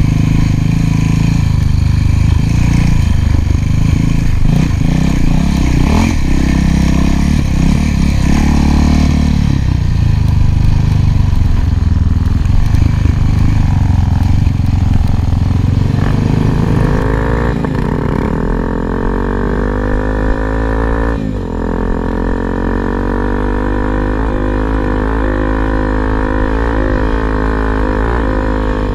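Single-cylinder four-stroke dual-sport motorcycle engine running under load and changing revs. From a little past halfway, music with a deep, steady drone comes in and takes over.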